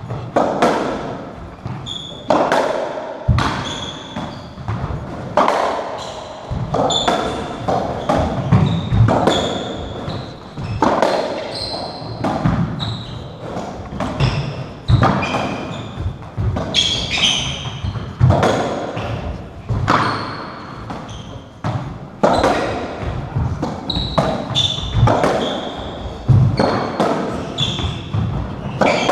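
Racketball rally on a squash court: the ball cracks off rackets, walls and the wooden floor about once a second, each hit ringing briefly in the court. Players' shoes squeak sharply on the floor between shots.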